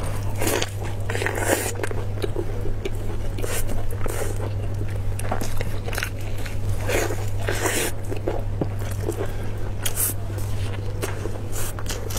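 Close-miked biting and wet chewing of saucy braised beef rib meat, with irregular soft smacks and squelches. A steady low electrical hum runs underneath.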